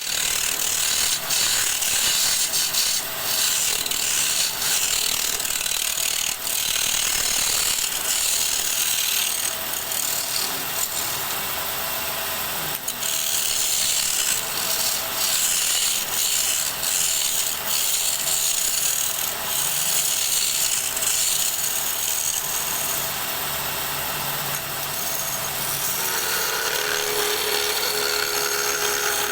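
Wood spinning on a lathe while a turning tool cuts and scrapes it, a continuous hissing scrape with short scratchy catches. Near the end the sound changes and a steady hum comes in.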